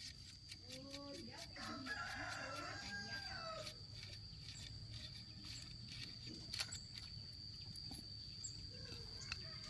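A faint rooster crowing once, a drawn-out call of about three seconds starting about a second in, over a steady high-pitched whine and a few small clicks.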